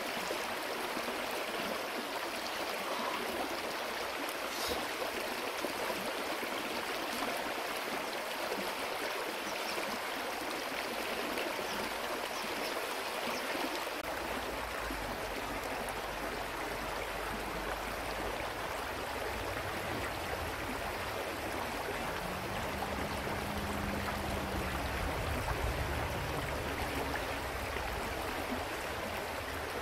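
Shallow river flowing over rocks: a steady rush of water. About halfway through, a low rumble joins it.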